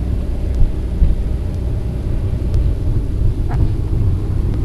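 A car driving, its engine and tyre noise a steady low rumble.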